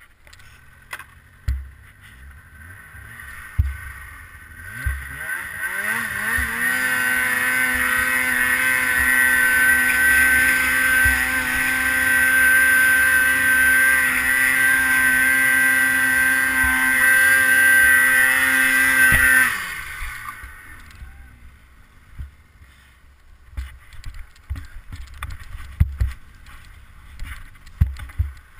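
Polaris Vertical Edge snowmobile's two-stroke engine revving up about five seconds in and held at high, steady revs for about thirteen seconds on a deep-snow hill climb. It then drops off sharply and winds down, leaving low wind rumble and scattered knocks of snow and sled.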